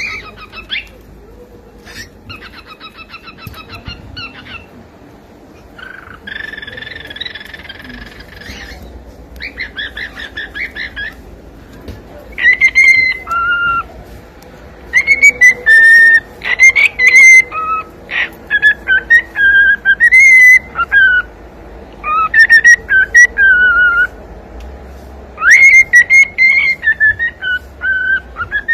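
Cockatiel vocalising: short bouts of buzzy, rapidly pulsed chatter, then from about twelve seconds in loud, clear whistled notes gliding up and down in short tune-like phrases.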